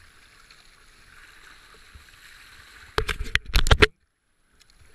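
Rapids rushing past a kayak, heard from the paddler's helmet camera. About three seconds in comes a burst of loud knocks and thumps lasting under a second, then the sound cuts out completely for about half a second.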